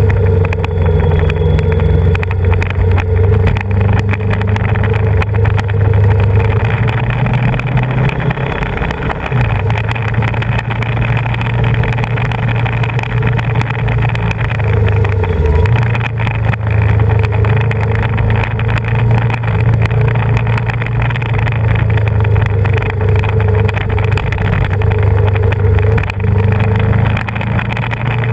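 Yamaha VMAX 1700's V4 engine running steadily under way, heard from the bike itself over steady wind and road noise. The engine note dips briefly twice, about nine seconds in and again around fifteen seconds.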